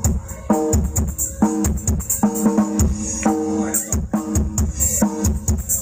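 Music played loud through a PA sound system demo rig of 18-inch bass cabinets and 12-inch mid cabinets: a steady beat with heavy bass pulses, shaker-like percussion and a repeating melodic line.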